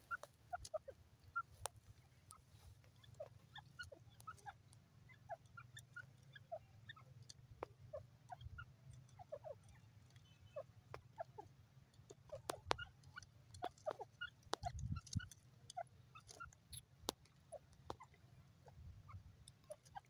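Francolin giving many short, soft call notes, scattered irregularly and at times several a second, with a few sharp clicks among them.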